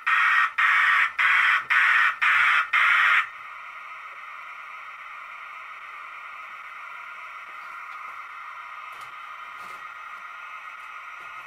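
G scale model steam locomotive sounding about six loud, evenly spaced chuffs in the first three seconds, then a steady, quieter hiss.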